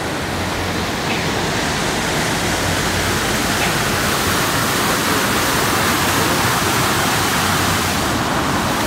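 Fountain jets splashing down into their basin: a steady rush of falling water that grows a little louder as it goes on.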